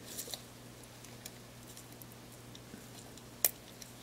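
Faint scratching and light ticks of a small metal tool working at the adhesive film over a camera's ribbon-cable connectors, with one sharp click about three and a half seconds in.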